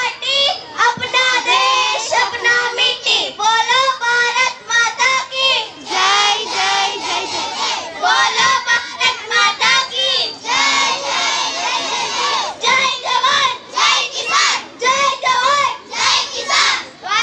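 A large group of schoolchildren's voices singing and shouting together, in short phrases with brief breaks between them.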